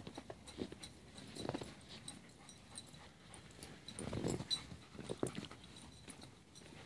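Alaskan Malamutes playing in snow: short, quiet dog noises that come in a few clusters, the loudest a little past the middle, with scattered footfalls in the snow.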